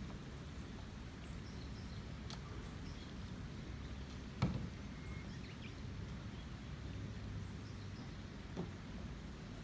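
Rain-swollen river flowing steadily with a low rushing rumble. A sharp knock sounds about four and a half seconds in, with fainter clicks about two seconds in and near the end, and a few faint high chirps.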